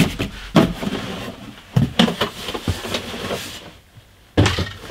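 Cardboard boxes being handled, stacked and set down: several dull knocks with scraping and rustling of cardboard between them.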